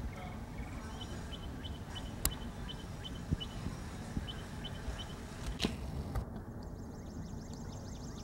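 Outdoor ambience: a steady low rumble with a bird singing a run of short, high chirps about three a second, and a couple of sharp clicks. Near the end a fast, buzzy trill comes in.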